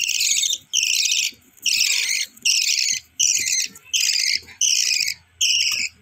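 Budgerigar chicks begging for food: a run of about eight raspy, high-pitched calls, each about half a second long, separated by short gaps.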